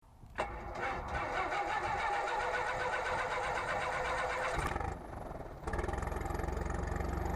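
Light aircraft piston engine, a Piper Cherokee's, starting up: the sound comes in suddenly about half a second in, changes about five seconds in, and settles into steady low-pitched running.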